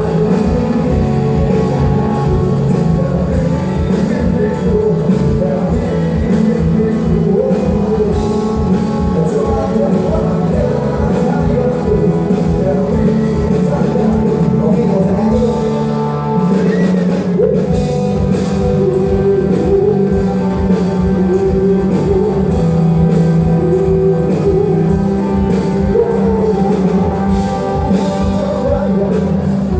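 Rock band playing live, a singer's voice over guitar and a drum kit keeping a steady beat.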